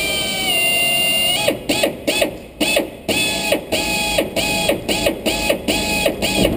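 Power drill bit squealing as it bores through the head of a small rusted steel screw. A high ringing squeal is held for about a second and a half at the start, then comes in quick stop-start bursts that bend in pitch as each one begins.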